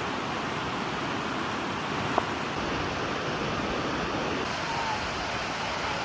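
Waterfall at a natural hot spring rushing steadily, with one sharp click about two seconds in.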